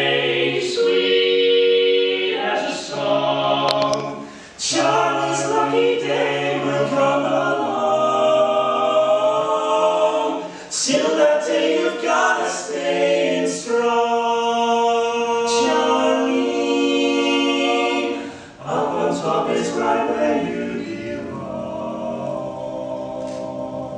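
Male barbershop quartet singing a cappella in four-part close harmony, moving through sustained chords, growing softer near the end.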